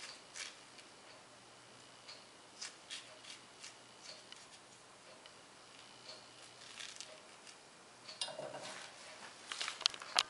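Faint clicks and light scraping of a metal vegetable corer twisting into a zucchini piece and lifting out its core. A run of sharper taps near the end, as the metal tool is laid down on the wooden cutting board.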